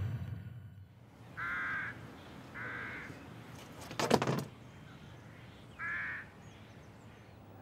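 A crow cawing three times, with a brief loud clatter between the second and third caws.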